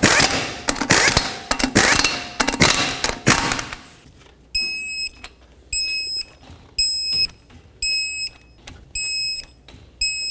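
Air impact gun running lug nuts down in several short rattling bursts, then a torque wrench held on a lug nut while a high electronic beep sounds about once a second, six times, signalling the 100 foot-pound setting.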